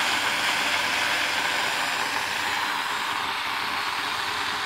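Steam hissing steadily from a homemade propane-fired monotube boiler made of coiled copper tubing, vented open to the atmosphere before it is pressurized, with a steady low rumble beneath.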